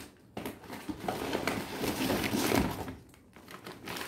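Plastic packaging crinkling and rustling against a cardboard box as a wrapped toy car is lifted out, for about two and a half seconds starting just after the beginning, then quieter.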